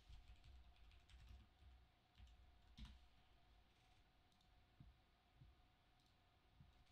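Faint computer keyboard typing and mouse clicks: scattered light taps, with a slightly louder click about three seconds in, over near silence.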